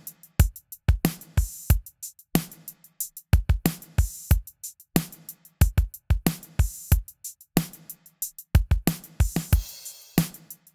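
Drum track playing a steady beat of punchy kick and snare hits, run through the Acustica Audio Coffee compressor in its second limiter mode and driven hard. The heavy compression brings up a long room-ambience tail after each hit.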